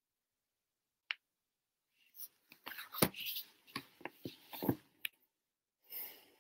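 Faint clicks and knocks mixed with rustling, like handling noise on a microphone: a single sharp click about a second in, a cluster of taps and rustles a second later, and a short rustle near the end.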